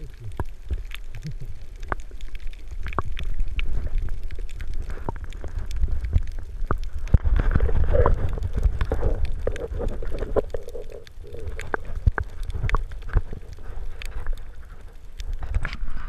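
Muffled underwater sound picked up by a camera held below the surface: a low rumble of water moving around it, with many scattered sharp clicks and crackles.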